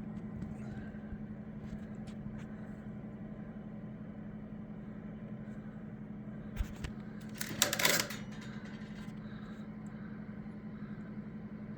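Steady low machine hum, with a single sharp knock about six and a half seconds in and a brief clatter of handling noise a second later.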